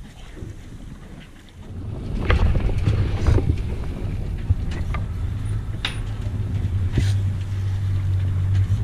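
Motorboat engine running, getting louder about two seconds in and then holding a steady low hum, with water splashing against the hull and wind on the microphone.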